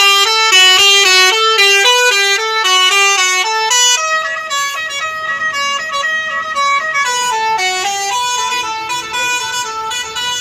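Bus's Basuri telolet horn, an electric multi-tone horn, playing a melody. It opens with a quick run of notes and slows to longer held notes in the second half.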